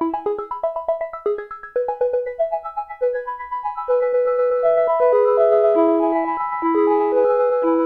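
Arturia MicroFreak synthesizer playing a factory preset: a quick run of short, plucky notes for the first few seconds, then longer held notes overlapping into chords.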